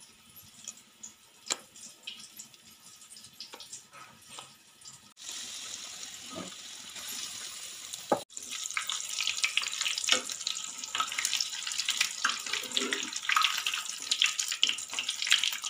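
Battered karpuravalli (Indian borage) leaves deep-frying in hot oil in a kadai: a dense, crackling sizzle, loudest from about eight seconds in. Before that come soft, scattered clicks and squelches of hands working the leaves in the bajji batter.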